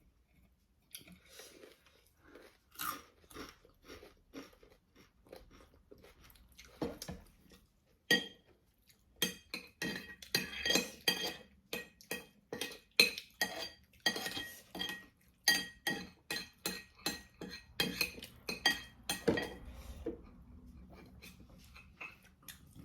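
Close-miked chewing and crunching of crispy fried food, a rapid crackle of bites that is busiest in the middle, with a few clinks of utensils on dishes.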